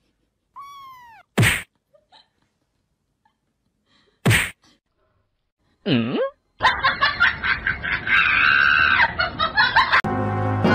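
A cat's short falling meow, then two sharp slaps a few seconds apart and a brief wavering glide in pitch. Upbeat music begins about six and a half seconds in and switches to a different tune near the end.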